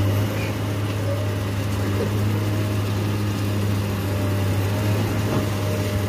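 Excavator's diesel engine running steadily with an even low hum, working its bucket in the water.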